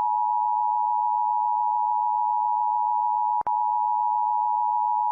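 Emergency Alert System attention tone: a loud, steady high beep held continuously, cut by a brief dropout with a click about three and a half seconds in.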